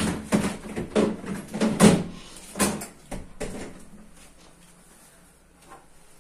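Plastic refrigerator crisper drawers and shelves being handled and fitted back into place: a run of sharp clacks and knocks over the first three seconds or so, then quieter.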